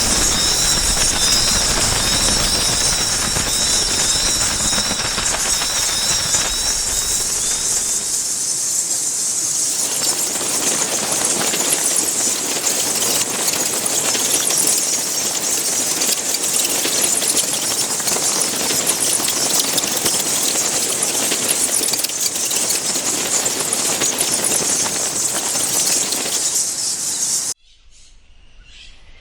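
A colony of bats squeaking and chittering in a dense, continuous high-pitched chorus, with many short chirps overlapping. It cuts off suddenly near the end.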